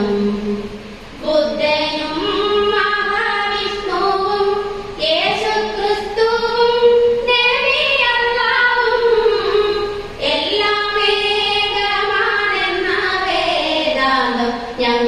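A high female voice sings an invocation prayer song in long held notes that slide up and down in pitch, with short pauses between phrases.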